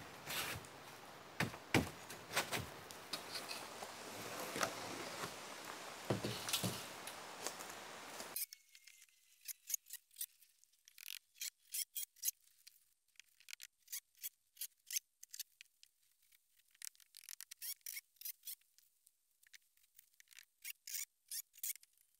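Large boards being handled and slid into place on a timber floor frame: scraping and rubbing with irregular knocks. About eight seconds in this cuts to faint, thin, high clicks and ticks.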